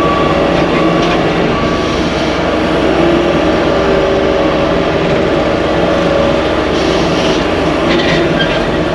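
Skid steer running at high power with its Blue Diamond cutter attachment spinning, a loud, steady machine drone as it cuts through overgrown brush.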